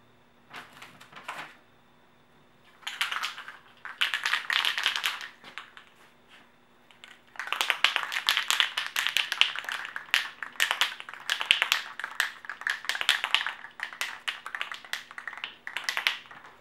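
Aerosol spray-paint can being shaken hard, its mixing ball rattling in fast clicks. It comes in several bursts: two brief ones, two longer ones, then a long stretch of shaking. This mixes the darker green paint before it is sprayed.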